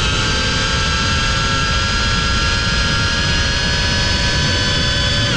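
FPV quadcopter's brushless motors and propellers giving a steady high-pitched whine of many tones, with a low rushing noise underneath, as heard on the onboard GoPro.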